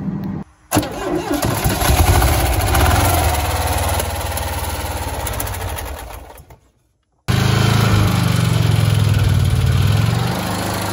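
Air-cooled 2.0 L flat-four engine of a 1982 VW Vanagon running, in two clips. The first starts about a second in, grows louder and fades out; after a short break the engine runs steadily.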